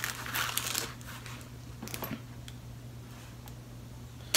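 A knife pouch and its contents being handled: soft rustling in the first second and a couple of light clicks about two seconds in.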